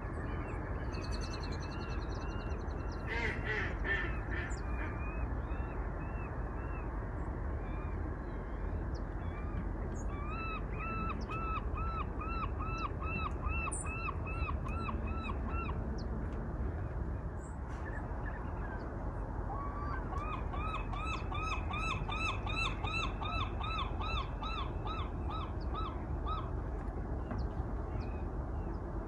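A bird calling in two long runs of evenly repeated notes, about three a second, with a few other calls near the start. A steady low rumble runs underneath.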